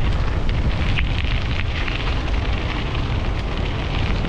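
Wind buffeting the microphone of a moving bike, a steady low rumble, with faint ticks and crunches from the tyres rolling over a dirt path.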